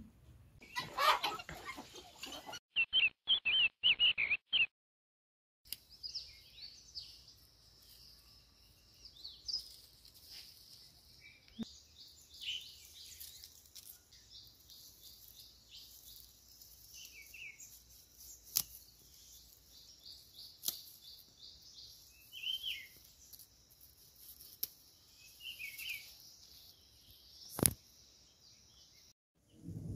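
Outdoor farm ambience: birds chirping now and then over a steady high, fast-pulsing hiss, with a few sharp clicks. It is preceded in the first few seconds by a couple of brief, louder edited snippets of warbling chirps and a sudden cut to silence.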